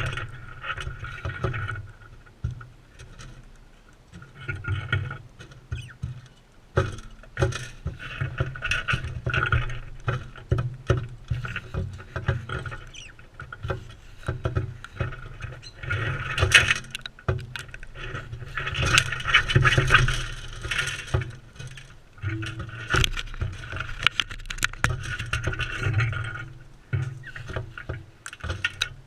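Crimson rosellas feeding right next to the camera: irregular bursts of pecking, scraping and rustling, with many sharp clicks.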